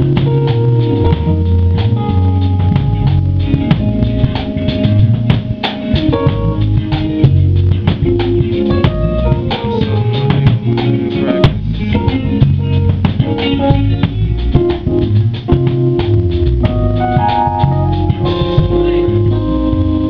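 A soul/hip-hop band playing live in a small rehearsal room: drum kit, electric bass and electric guitar together in a steady groove. Near the end the playing gives way to long held chords.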